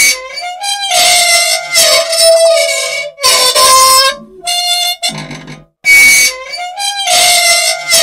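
Loud, high-pitched squealing and screeching from an old machine's dry moving parts. It runs as a string of pitched squeals about a second each that slide slightly in pitch, with brief gaps, and the sequence repeats about every six seconds. The squealing is that of unoiled metal, which the uploader says needs oil.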